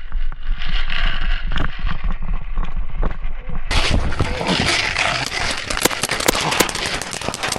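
Paintball markers firing low-impact paintballs: a run of sharp pops and cracks, densest in the second half, over the rustle and knocks of the player moving.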